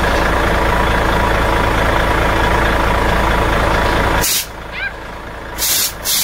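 Compressed air blasting out of a truck air tank's drain valve as it is pulled by hand, over the idling engine, to check the tank for water or oil from the compressor. The rush cuts off about four seconds in, and two short, sharp blasts follow near the end.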